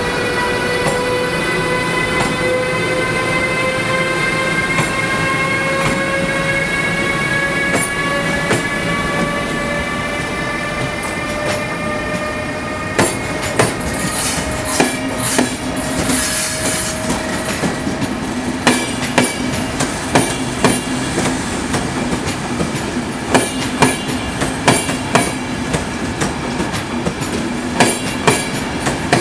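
Siemens Vectron electric locomotive pulling away, its traction drive whining in a stack of tones that slowly rise in pitch as it gathers speed. After about 13 seconds the wagons and coaches clatter over rail joints and points in a run of regular clicks, with a brief high wheel squeal.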